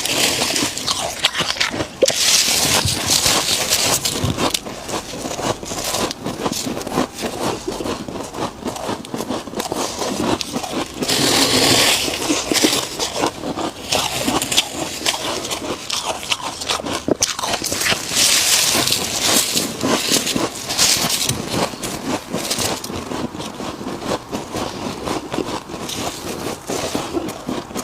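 Close-miked crunching and chewing of freezer frost, with dense crackling throughout and a few louder stretches of scraping and crunching.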